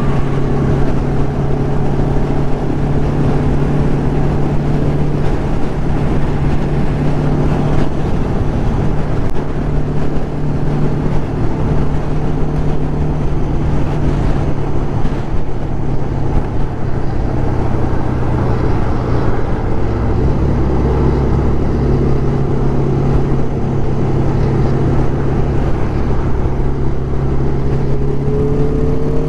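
1996 Kawasaki ZX-11's inline-four engine running at a steady highway cruise, with wind rush over the microphone. The engine note shifts lower about two-thirds of the way through and starts to rise near the end.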